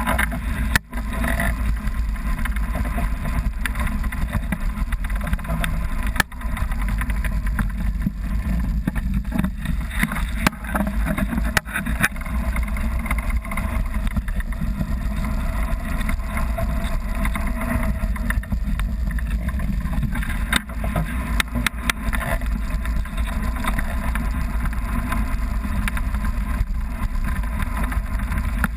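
Wind buffeting the microphone on an open beach, a steady heavy rumble with a few brief dropouts.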